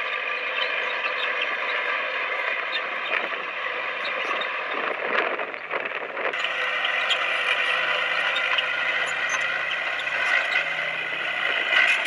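Komatsu bulldozer working: the diesel engine runs under load with a steady whine, and the tracks and blade clatter and scrape. The sound dips briefly and then changes abruptly about six seconds in.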